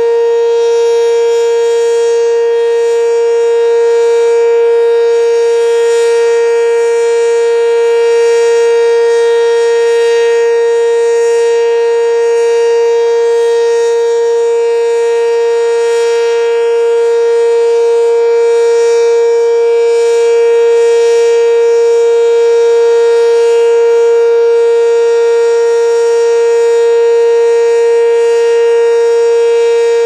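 ACA Banshee 115 electromechanical siren sounding one steady tone with overtones, holding the same pitch and loudness with no rise or fall.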